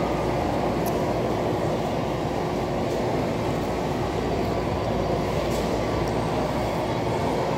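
Steady low background din of a busy food court, an even noise with no distinct voices, with a few faint clicks.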